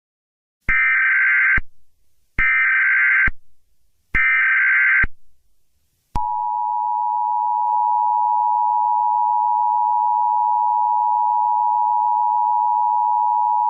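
Emergency Alert System broadcast signal. Three short bursts of SAME header data tones, each about a second long, come with short gaps between them. About six seconds in, the steady two-tone EAS attention signal starts and holds.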